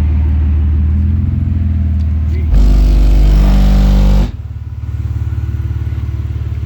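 Two DC Audio 18-inch subwoofers in a car playing deep bass tones for a loudness (SPL) run: a steady low note, then a much louder, deeper note about two and a half seconds in that lasts nearly two seconds before dropping back to a quieter bass.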